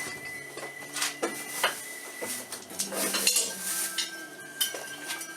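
Metal tools and parts clinking and knocking against each other in irregular, separate strikes, as during hand work on metal parts.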